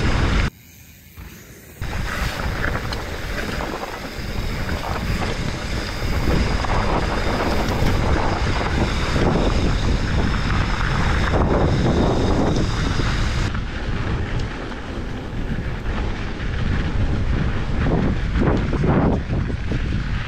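Wind buffeting the camera microphone, mixed with a mountain bike's tyres rumbling over loose, dusty dirt on a fast descent. The rushing noise drops away briefly about half a second in, then returns for the rest of the ride.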